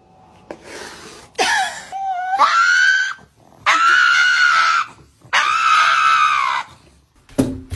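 A pug howling: three long, high-pitched yowls in a row, the first rising in pitch, the last two each held steady for over a second.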